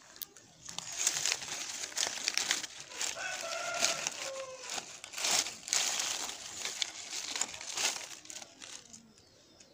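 Dry leaves and twigs crackling and rustling as a hand rummages through them and drags at a tangle of scrap wires, in a rapid, uneven run of crackles that eases off near the end.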